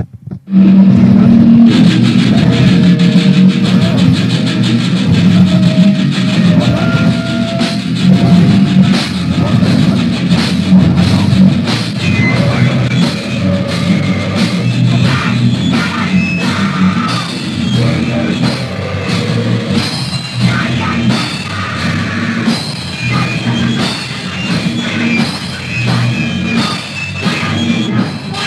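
Hardcore punk band playing: distorted electric guitar, bass and drum kit in a loud, raw, lo-fi demo recording. The music kicks in abruptly just after a brief silence at the start.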